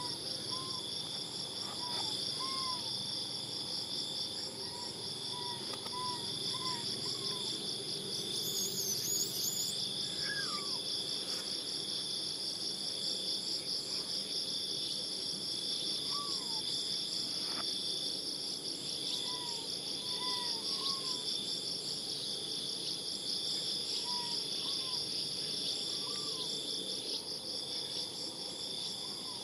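Steady, high-pitched insect chorus with a fine rapid pulse. Short, faint rising-and-falling chirping calls come every second or two over it.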